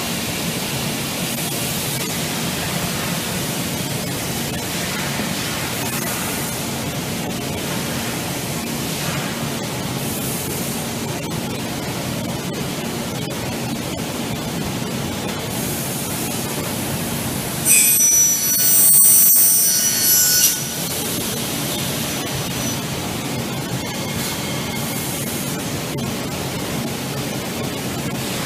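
PromaX automatic aluminium profile cutting saw running with a steady hum and hiss. About two thirds of the way in, its circular blade cuts through an aluminium solar panel profile for about three seconds, loud and high-pitched.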